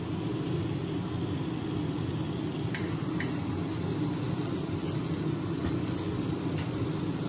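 Steady low mechanical hum of kitchen machinery, with a few faint light clicks of metal spatulas against ceramic plates in the second half.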